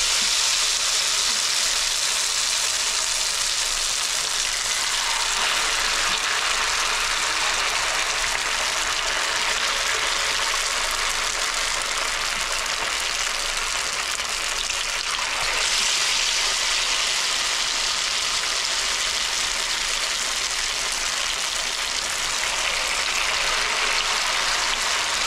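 Batter-coated potato pieces (viazi karai) deep-frying in hot cooking oil: a loud, steady sizzling hiss that starts as they go into the oil and swells again about fifteen seconds in.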